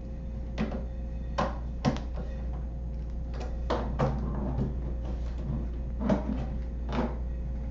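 Scattered light clicks and knocks as the steel-brace hinge of a homemade laptop is tightened with a hand tool and its cutting-board lid is handled and swung.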